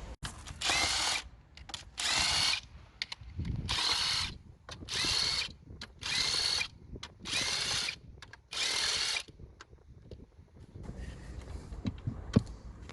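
A handheld power tool's motor run in seven short bursts, each a whine lasting under a second, then a few faint clicks near the end.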